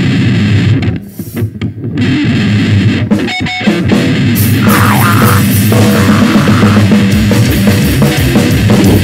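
Noisecore band playing: heavily distorted guitar and drums in a loud, dense wall of noise. It thins out briefly about a second in, then the full band comes back in.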